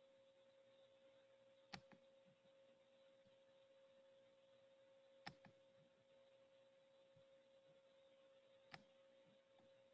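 Near silence: a faint steady hum-like tone, with three faint clicks a few seconds apart.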